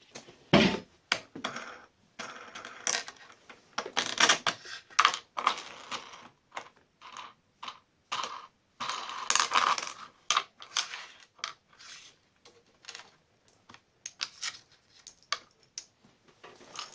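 Irregular clicks, knocks and scraping of metal parts being handled: the aluminium extrusion profile being unfastened and slid off the fence of a homemade table saw.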